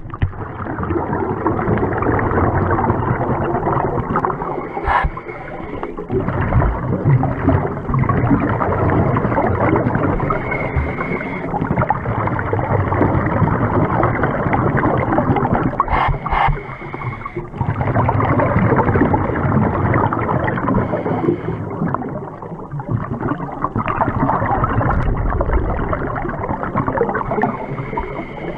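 Muffled underwater noise through a camera housing on a scuba dive: a dense gurgling rumble of water and the diver's regulator bubbles, swelling and fading every few seconds, with a few sharp clicks.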